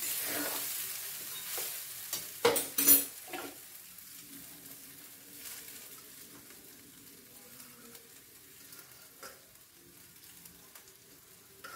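Steel spatula stirring and scraping cooked basmati rice in a metal kadai, with a few sharp metal clinks about two and a half to three seconds in. After that only a faint frying hiss from the rice in hot ghee on a low flame.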